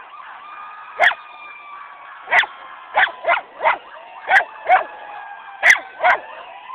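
Miniature schnauzer barking, about nine barks in uneven bunches, over the faint, slowly gliding tone of an emergency vehicle's siren; the dog is barking at the sirens, which she dislikes.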